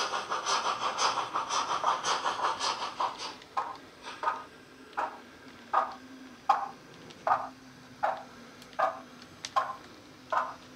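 Sound of a Hornby LNER W1 'Hush Hush' model steam locomotive coming from its DCC sound decoder through a small on-board speaker. Its steam exhaust chuffs come fast and close together at first, then from about three and a half seconds they settle into slow, evenly spaced beats about every three-quarters of a second as it runs at low speed. A faint steady hum sits under the beats.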